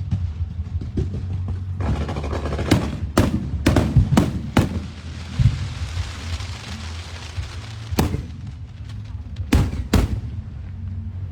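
Fireworks going off: a quick run of five sharp bangs about three seconds in, with a hissing crackle trailing after them, then more single bangs near the end. A steady low rumble runs underneath.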